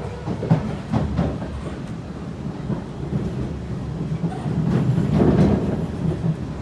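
Kawasaki C151 metro train running on track, heard from inside the carriage: a steady rumble of wheels on rail with a few sharp clicks in the first second or so. The noise swells loudest about five seconds in.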